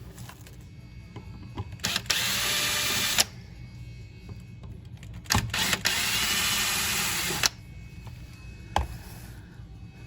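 Power drill/driver running in two short bursts, the first about a second long and the second about a second and a half, driving an electrical receptacle's mounting screws through the spacers, with clicks and knocks of handling around them.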